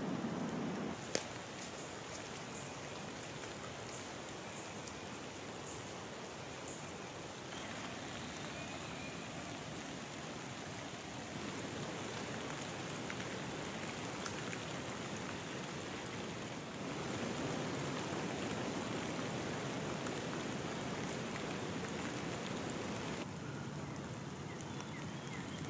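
Steady rain falling on standing floodwater and wet leaf litter, a constant hiss whose tone shifts abruptly a few times. A single sharp click comes about a second in.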